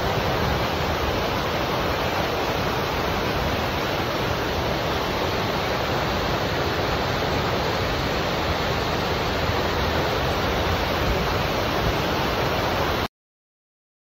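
Steady, loud noise of a large waterfall pouring onto rocks, cutting off abruptly about thirteen seconds in.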